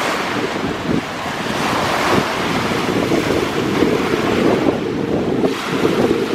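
Lake Superior waves breaking and washing on the shore, a continuous surging wash, with wind buffeting the microphone.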